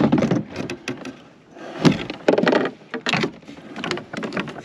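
Irregular knocks, clicks and scrapes of fishing gear being handled aboard a plastic fishing kayak.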